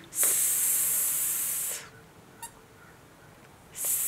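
A person's voice hissing a drawn-out 'sss', the s sound at the start of 'screw', held for about a second and a half, then a shorter 'sss' near the end.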